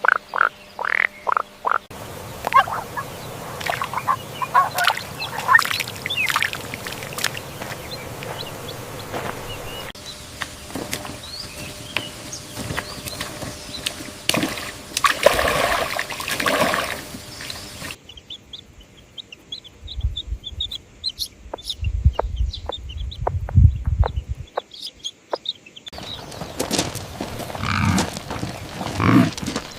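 A run of different animal-call recordings spliced together, a new one every eight seconds or so, each with short repeated calls.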